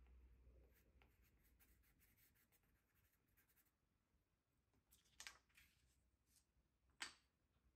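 Faint scratching of a pencil sketching on paper, then two brief handling sounds as the sheet is moved across the table.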